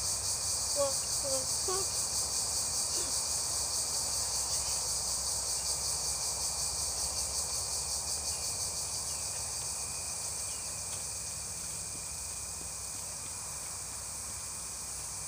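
A steady, high-pitched chorus of insects with a rapid, even pulsing, running without a break.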